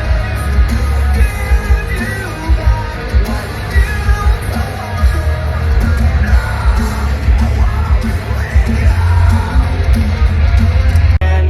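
A live rock band playing loud, with a heavy pulsing bass and a singer alternating between yelling and singing. Near the end the sound cuts abruptly to a different passage of music.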